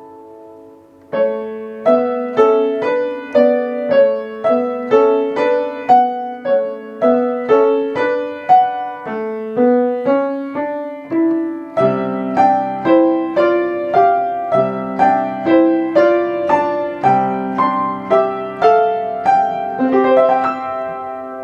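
Piano playing a bright melody of evenly struck notes, about two a second, starting about a second in after a fading chord. A fuller left-hand accompaniment of low chords joins about halfway through.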